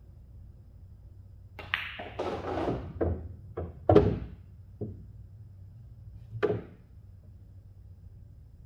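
Pool shot on a Diamond table: a sharp click of the cue tip on the cue ball about a second and a half in, then a run of knocks and thuds as the balls collide and strike the cushions, the loudest about four seconds in and a last knock about two and a half seconds after it.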